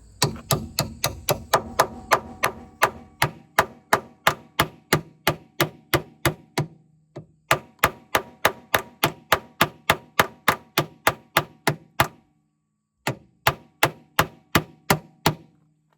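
Hammer blows on a metal removal tool, about three a second with a ringing metallic note, driving out a rusted, stuck door hinge pin sleeve. The blows pause for about a second near the end, then a last quick run follows.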